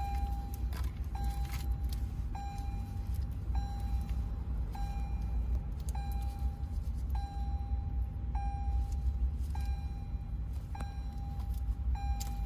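Lexus RX's electronic warning chime beeping steadily, one tone about every 1.2 seconds, over a low steady hum. Scattered clicks and plastic rattles as wiring connectors are worked loose behind the dash.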